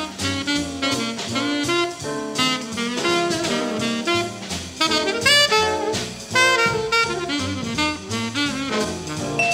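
Instrumental jazz-style music: a lead melody with sliding, bending notes over a drum kit.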